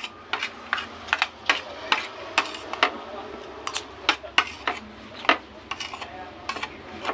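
Spoon and fork clinking and scraping against a plate while eating: a string of sharp, irregular clicks, about two a second.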